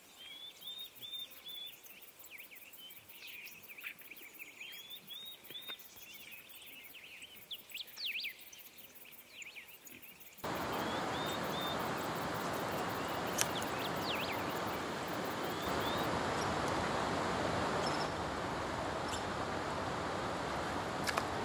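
Small birds chirping and singing in short repeated notes and quick whistled sweeps. About ten seconds in, the sound cuts abruptly to a louder, steady rush of flowing river water, with birds still faintly calling over it.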